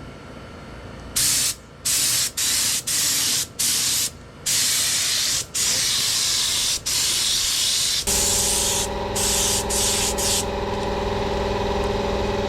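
Paint spray gun hissing in repeated short bursts, cut on and off as the trigger is pulled and released, while the sprayer is not yet spraying to the user's satisfaction. About eight seconds in, a motor starts and hums steadily under the spraying.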